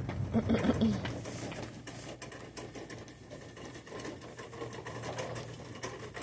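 A rapid light rattling clatter of many small clicks, louder in the first second.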